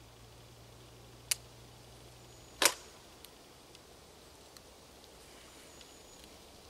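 Two sharp metal clicks about a second and a half apart, the second louder, as a 1PN58 night sight is clamped onto the rifle's side mount. A few faint handling ticks follow.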